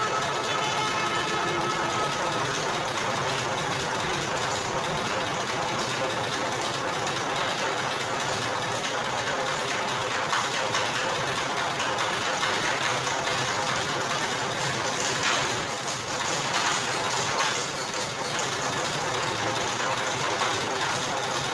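Motor-driven roller sugarcane crushing machine running steadily, its electric motor and geared rollers turning, with a few brief louder clatters about two-thirds of the way through.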